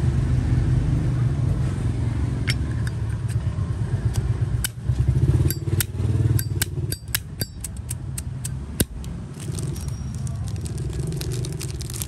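Steady low rumble of road traffic, with a run of sharp metallic clicks and clinks from Zippo lighters being handled. The clicks come thickest around the middle, one louder click about three quarters of the way through.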